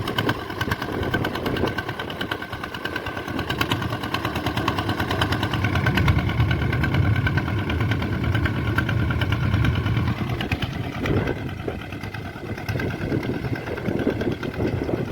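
Swaraj 855 tractor's three-cylinder diesel engine running with a fast, steady firing beat; its low rumble grows louder about six seconds in and eases again near the end.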